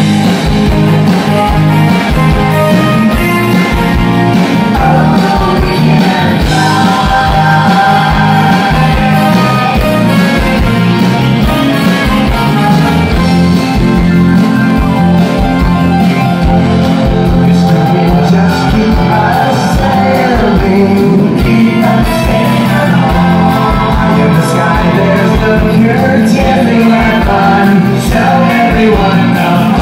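Live rock band playing: electric guitars, keyboards and a drum kit keeping a steady beat, with lead and backing vocals singing.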